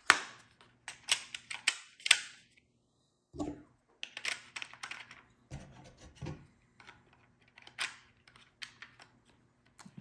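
Plastic parts of a Dye Rotor LTR paintball hopper clicking and clattering as it is handled and pieced back together: irregular sharp clicks and taps, some in quick runs.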